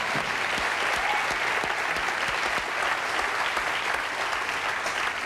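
Studio audience applauding steadily, a dense clatter of many hands clapping, the host clapping along.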